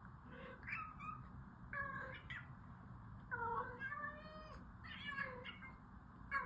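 A domestic cat meowing repeatedly: about five short, pitched, wavering meows, roughly one a second.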